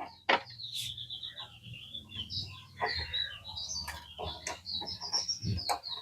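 Small birds chirping steadily in quick high notes, with scattered light clicks and knocks from hands working on the gas cooker.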